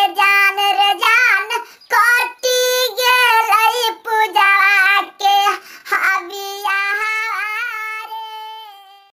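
High-pitched solo singing voice, the pitch-shifted voice of a cartoon cat, in short wavering phrases that end on a long held note fading out near the end.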